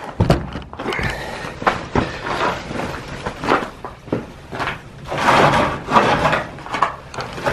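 Knocks, clunks and scraping as a man heaves at the front of a 2009 Polaris 550 snowmobile, trying to lift it off the floor by hand, with a longer stretch of scraping noise about five seconds in.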